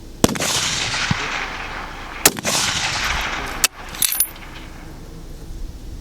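Two fullbore target rifle shots about two seconds apart, each followed by a long rolling echo across the range. Near the end come a few sharp metallic clicks with a brief high clink.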